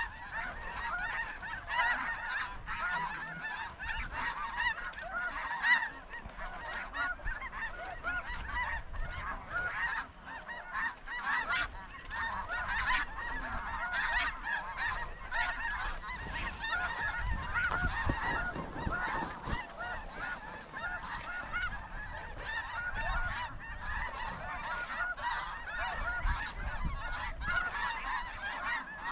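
A large flock of snow geese calling: a dense, unbroken chorus of many overlapping calls.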